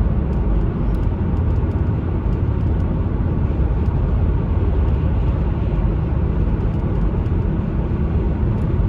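Steady low rumble of engine and road noise heard from inside a moving vehicle being driven on the road.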